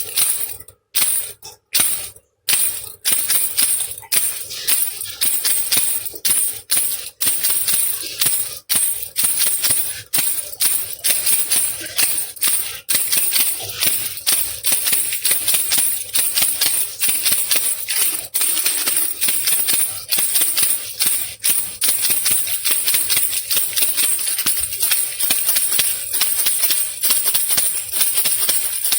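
Baby rattle (khulkhula) shaken continuously: a fast, dense stream of rattling clicks over a bright hiss, with a few brief breaks in the first few seconds.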